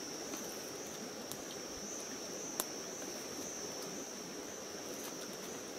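Insects droning in a steady high-pitched chorus, with a single sharp click about halfway through.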